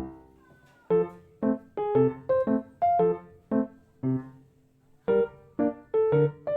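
Background piano music: single notes and chords struck about twice a second, each ringing and dying away, with short pauses between phrases.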